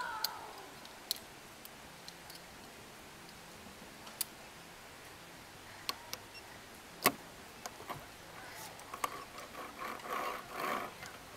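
Sharp metal clicks and clinks of carabiners and a zip-line pulley being handled on a steel cable, a few scattered clicks with the loudest about seven seconds in.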